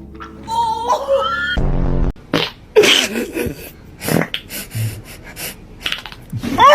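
Fart sound effects: a short, low, buzzy blast about two seconds in, with a jumble of squeaky gliding sounds and short noisy bursts around it.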